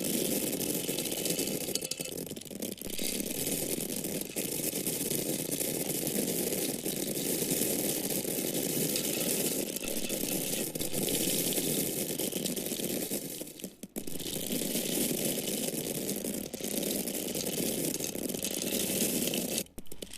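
Dry corn kernels pouring and falling, a continuous dense rattle of many small grains striking a surface. The flow stops briefly about fourteen seconds in and again just before the end.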